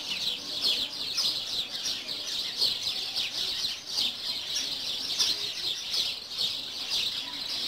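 Many small birds chirping at once in a dense, continuous chorus of short, quick high notes.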